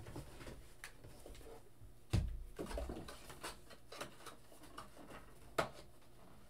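Cardboard card box and foil packs being handled and set down on a table: a dull thump about two seconds in, another sharper knock near the end, and scattered light taps and clicks.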